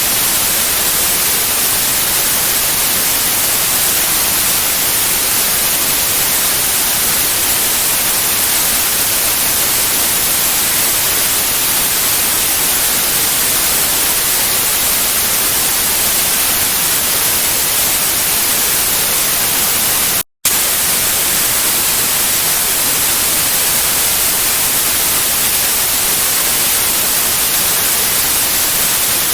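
Steady white noise hiss, brightest in the treble, played as a sleep sound. It drops out for a split second about twenty seconds in, then resumes unchanged.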